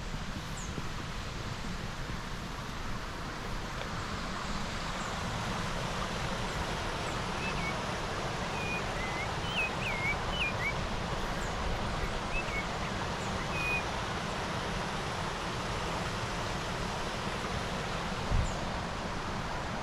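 Steady rush of a waterfall, with a few short bird chirps in the middle and a single knock near the end.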